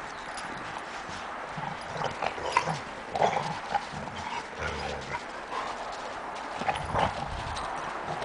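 Dogs wrestling and romping in snow: paws scuffing and crunching in the snow with irregular thumps, busiest in the middle.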